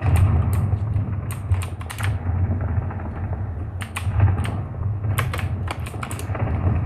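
Computer keyboard keys clacking in irregular bursts during gameplay, over a steady low rumble.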